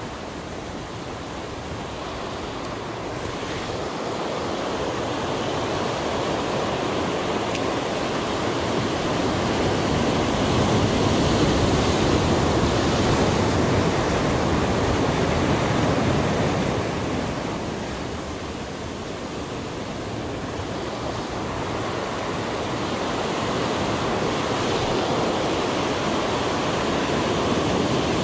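Sea surf breaking and washing over a rocky shore, a continuous rushing wash that swells to its loudest around the middle, eases for a few seconds, then builds again toward the end.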